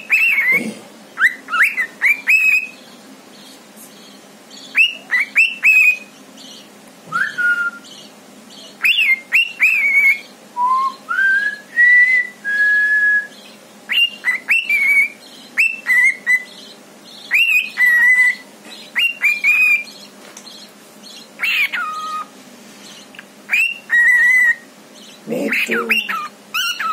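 Cockatiel whistling in short phrases of two or three quick, sharply swooping notes, repeated with pauses, with one slower rising whistle about ten seconds in.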